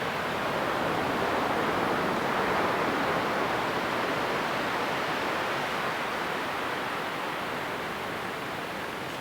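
Ocean waves washing onto a beach: a steady rush of surf that swells a couple of seconds in, then slowly eases.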